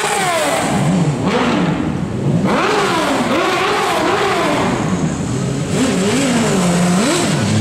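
High-performance engine revving again and again, its pitch climbing and falling several times in a row.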